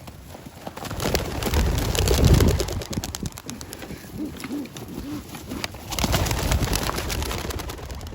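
A flock of young pigeons taking off from a basket with a rush of wing flapping and clapping, in two bursts, about a second in and again around six seconds in. A pigeon coos a few times in between.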